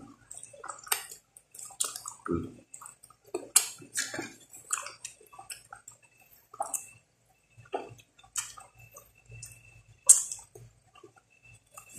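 Close-up wet eating sounds from a person chewing and sucking tender stewed goat's foot: irregular short smacks and lip clicks, with the loudest smack about ten seconds in.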